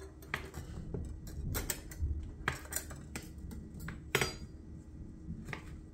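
Kitchen knife slicing frozen salo (cured pork fat), the blade knocking down onto the cutting surface with each cut in an irregular run of sharp clicks and taps.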